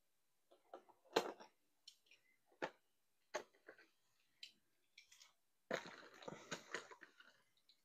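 Faint scattered clicks and taps of die-cast toy cars and plastic packaging being handled, with a short run of rustling and clicking about six seconds in.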